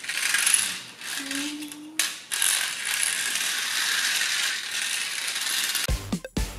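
Plastic wheels of a small LEGO car rolling back and forth on a hardwood floor, a steady rattling clatter that starts abruptly about two seconds in. It gives way to music near the end.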